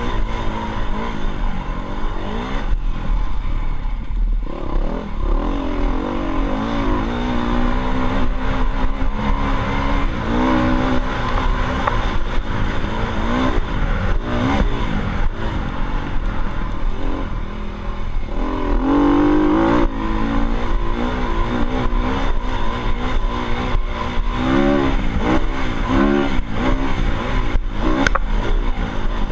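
Dirt bike engine running under way, its pitch rising and falling again and again as the throttle is worked, over a steady low rumble.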